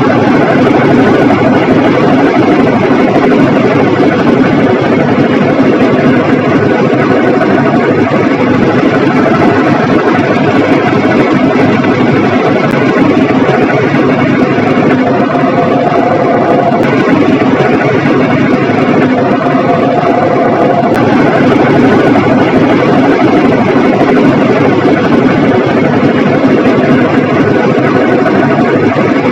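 Whirlpool MaxDry 123 top-load washing machine spinning, making a loud, steady, excessive mechanical noise from the drum: the sound of a failed gearbox.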